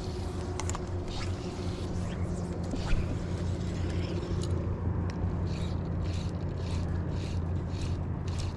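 A steady low motor hum under a series of short swishes of fly line as the rod is cast and the line handled, coming about every half second in the later part.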